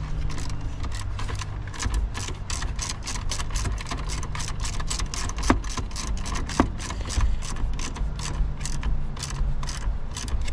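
A 10 mm ratcheting wrench clicking steadily, about three to four clicks a second, as it tightens the nut on a car battery's positive terminal clamp. Two sharper clicks come about midway.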